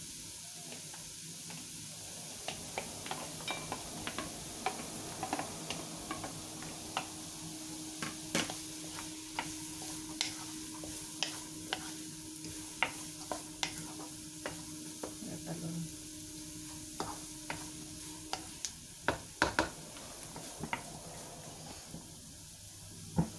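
Diced carrot and chayote sizzling in butter in a nonstick wok, with a wooden spatula stirring through them and knocking against the pan in many short, irregular clicks.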